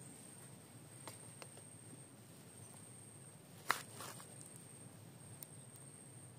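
Quiet outdoor ambience: a faint steady hiss and a thin high whine, broken by a few light clicks and rustles, the sharpest about three and a half seconds in.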